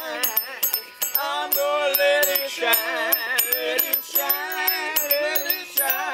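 Blues music: a man singing with wavering, sliding held notes over a steady ticking percussion beat.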